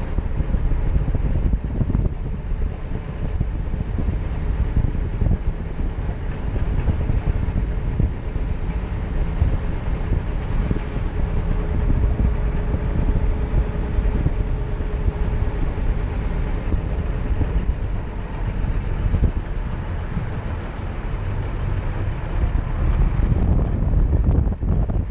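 A classic Mercedes-Benz car driving along a lane: a steady low rumble of engine and road noise, with wind buffeting the microphone.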